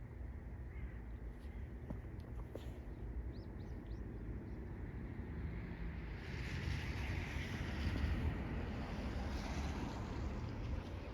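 Storm wind rumbling on the microphone, with a gust of rushing noise swelling about six seconds in and easing off near the end. A few faint short bird calls come through around three to four seconds in.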